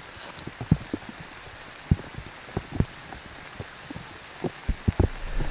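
Steady rain falling, an even hiss with scattered, irregular low knocks.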